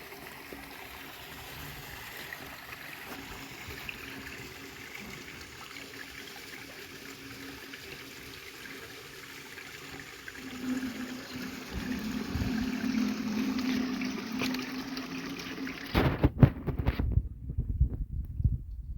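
Rainwater running and trickling as a steady wash. About halfway through a low hum joins it. Near the end loud, irregular low thumps come in and drown it out.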